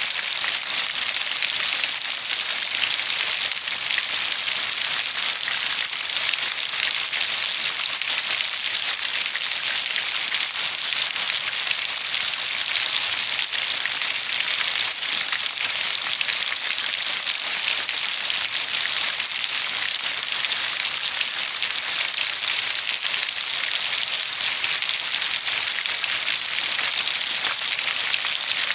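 Steady rainfall, a dense even hiss of drops on a surface with fine pattering ticks throughout.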